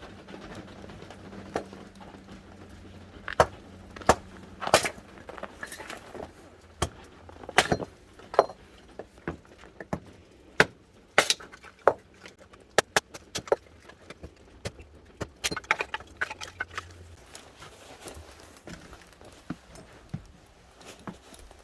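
Irregular clinks and knocks of hard objects being handled and set down, some sharp and loud, with a faint steady low hum underneath that stops about 17 seconds in.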